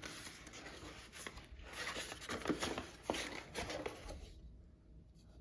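Rustling and light handling of product packaging, with a few soft knocks, dying away about four seconds in.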